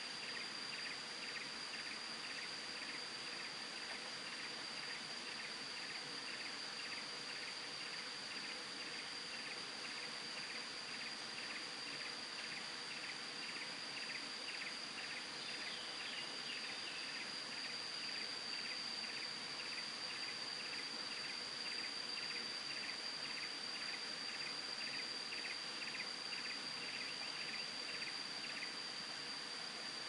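Insects droning with a steady high whine, over a fainter chirp that repeats about twice a second throughout, above a steady hiss.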